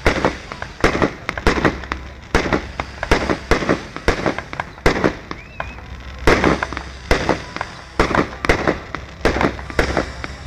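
Aerial fireworks shells bursting in an irregular rapid series, about two sharp bangs a second, each with a short reverberant tail.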